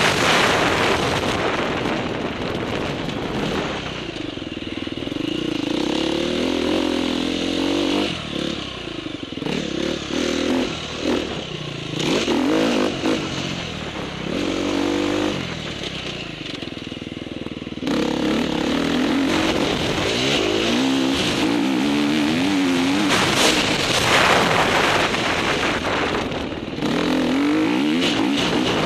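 KTM 350 dirt bike's engine heard from on board, revving up and down again and again as the bike accelerates and shifts along a dirt motocross track. The engine drops quieter for a few seconds about halfway through, then picks up again.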